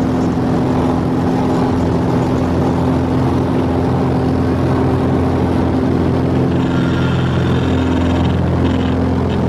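Cessna 180's Continental O-470 flat-six engine and propeller at full take-off power, heard from inside the cockpit during the take-off roll, steady in pitch. A high buzzing tone joins about two-thirds through and breaks up near the end.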